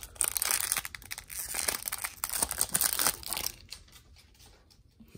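Foil wrapper of a Topps baseball card pack crinkling and tearing as it is peeled open by hand. The crackling is dense for about three and a half seconds, then dies down to a few faint rustles.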